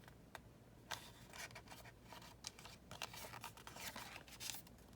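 Faint paper rustling and scattered light ticks: pages of a junk journal being handled and turned.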